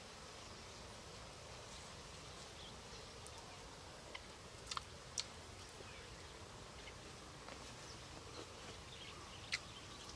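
Faint outdoor background with a steady insect hum, broken by a few short sharp clicks, the clearest about five seconds in and again near the end.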